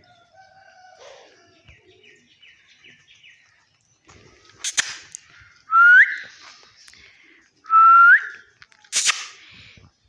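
Rose-ringed parakeet (Indian ringneck) giving two loud rising whistles about two seconds apart in the second half, with faint soft chirps earlier. A sharp click comes a second before the first whistle and another a second after the second.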